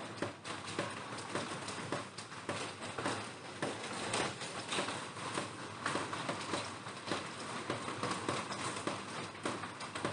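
Raindrops falling on a plastic roof: irregular sharp taps over a steady hiss of rain.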